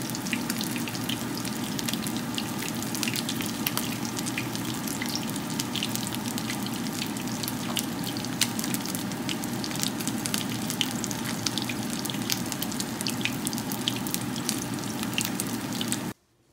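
Battered noodlefish cakes frying in hot oil: a steady sizzle full of sharp crackles and pops, which cuts off suddenly near the end.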